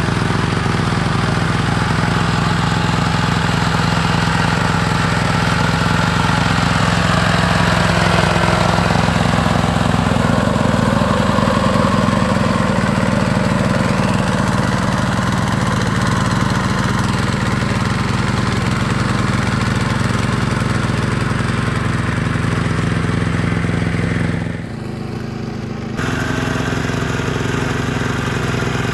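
Single-cylinder Yanmar diesel engine of a hand tractor running steadily under load as it tills through a muddy rice paddy. It drops in level for about a second near the end, then comes back unchanged.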